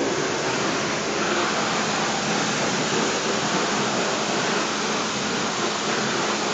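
High-pressure car-wash wand blasting a steady jet of water onto a Daewoo Lanos 1.5 8-valve cylinder head on a tiled floor, a loud even hiss of spray that shuts off at the very end.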